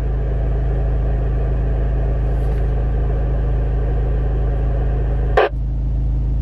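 Car engine idling steadily, heard from inside the cabin, with one short click about five and a half seconds in.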